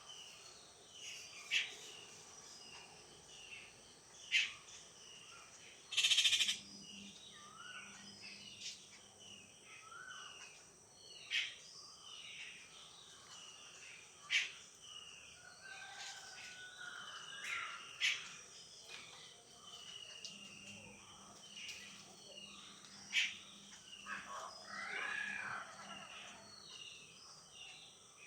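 Mixed chorus of birds chirping and calling, with short whistled glides and several loud, sharp calls spread through, the loudest about six seconds in.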